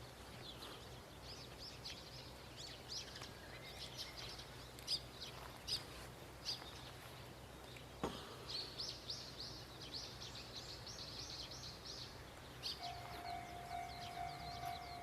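Faint birdsong: many small birds chirping, busiest in the middle, over a steady low hum. Near the end a steady, distant held tone sets in and carries on.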